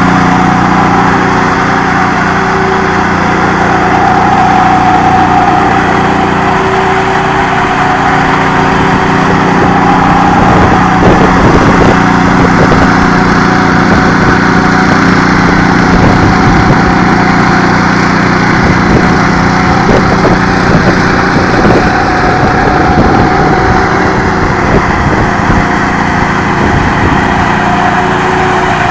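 Ride-on power trowel's engine running loud and steady while its rotating blades finish fresh concrete.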